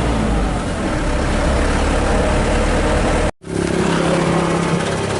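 Light truck's diesel engine running, with heavy low rumble. The sound drops out for an instant a little over three seconds in, then the engine runs on steadily with a low, even hum.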